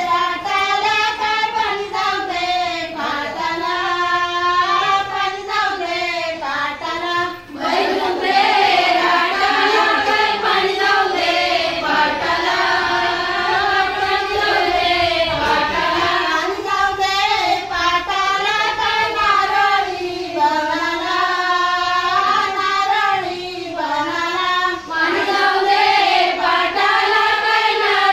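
A group of women singing a traditional Marathi fugdi song together, the tune rising and falling in short repeated phrases. The singing grows fuller and a little louder about eight seconds in.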